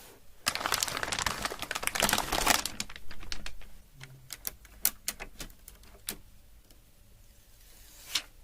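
Handling noise from unboxing: a busy rush of crackling and clicking for about two and a half seconds, then a handful of separate clicks and taps, and one last click near the end.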